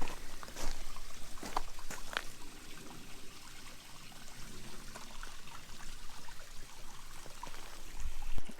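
Shallow rocky creek trickling and splashing over rocks, with a few sharp taps in the first couple of seconds.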